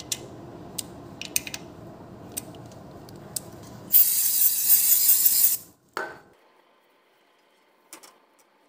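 Socket ratchet clicking as the small 8 mm screws of a scooter's oil filter cover are tightened, then an aerosol spray can hissing in one burst of about a second and a half, the loudest sound. A short knock follows just after the spray, and a single click near the end.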